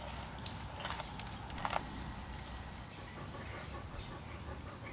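A wolf chewing meat off a bone, with a few sharp crunches in the first two seconds as the teeth work on the bone.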